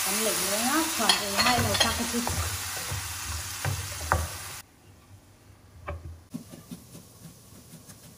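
Pork belly, shallots and garlic sizzling in a frying pan in a little water while a wooden spatula stirs them. About four and a half seconds in, the sizzling cuts off abruptly to a quieter stretch of light knife taps chopping green onions on a wooden cutting board.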